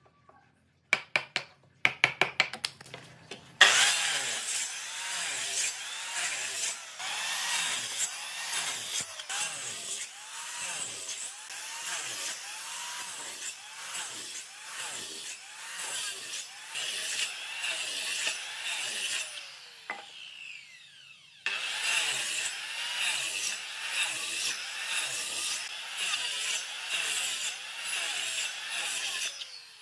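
Handheld electric circular saw cutting a row of short notches into the edge of a thick wooden slab, the motor's pitch dipping each time the blade bites, about once a second. About twenty seconds in it is switched off and winds down with a falling whine, then starts cutting again. At the start, a few sharp taps of a mallet on a wood chisel.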